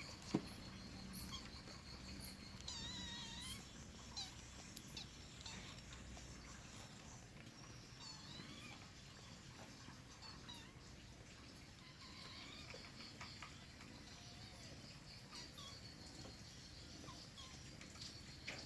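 Kitten meowing from hunger: a few faint, wavering mews, the clearest about three seconds in and another about eight seconds in. A single sharp click comes just after the start.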